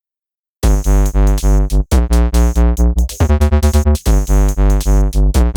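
Electronic background music with a pulsing synth bass beat, starting about half a second in after a moment of silence.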